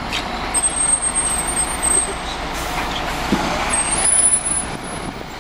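FDNY fire engine driving past close by, its diesel engine and tyres a steady rumbling noise with a few brief swells as it goes by.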